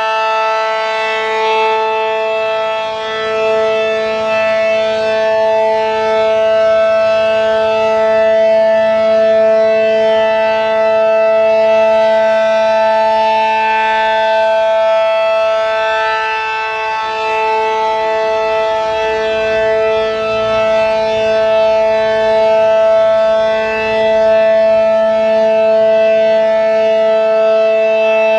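ACA Allertor 125 outdoor warning siren with an 8/12-port rotor and a Penetrator shroud, sounding its full-alert signal: a loud, steady two-tone chord that holds its pitch and swells and fades slightly in loudness every few seconds.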